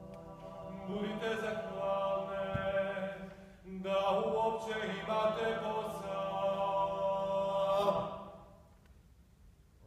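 Voices singing a slow, unaccompanied chant-like song in harmony with long held notes. There are two phrases, the second starting about four seconds in and ending about eight seconds in.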